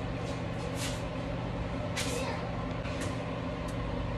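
A steady low mechanical hum with hiss, from a running kitchen appliance or fan, with a few faint light clicks.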